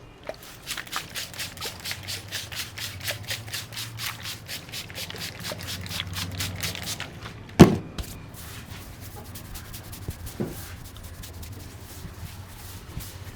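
Masseur's hands striking rapidly and rhythmically during an Indian head and back massage, about four strikes a second, then one loud slap a little past halfway, followed by quieter rubbing of hands over skin and hair.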